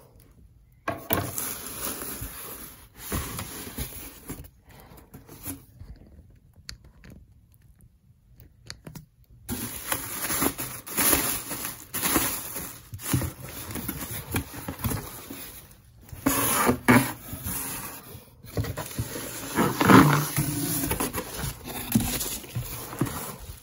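Plastic air-pillow packing and a cardboard shipping box being handled: irregular rustling, crinkling and scraping as the packing is pulled out of the box. There is a pause of a few seconds about five seconds in.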